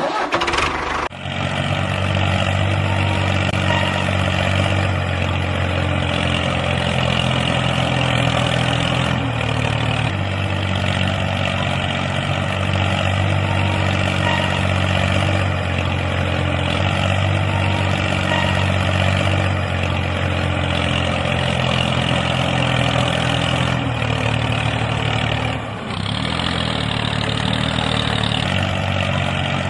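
An engine running steadily at an even pitch. It cuts in at the start and dips briefly near the end.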